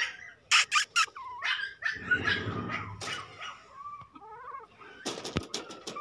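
Toy Pomeranian puppies giving short high yips and whimpers, with a few sharp clicks, the loudest about half a second to a second in.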